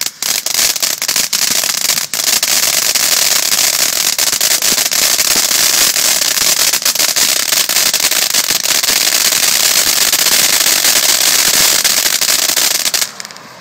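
Firework going off: a dense, continuous crackle of rapid sharp pops and hiss that runs for about thirteen seconds and then cuts off suddenly.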